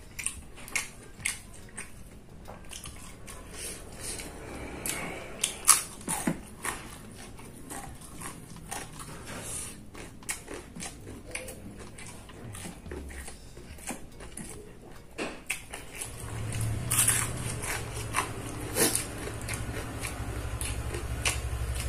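Close-up eating sounds: a person chewing and smacking, with irregular wet clicks and crunches. A steady low hum comes in about two-thirds of the way through.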